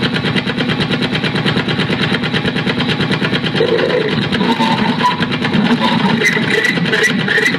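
Amplified electronic noise from a live noise-music set: a loud, rapid stuttering buzz. After about three and a half seconds, wavering pitched tones join in.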